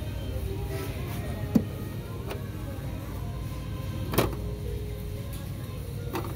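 Supermarket background: a steady low hum, broken by two sharp knocks, one about a second and a half in and a louder one about four seconds in.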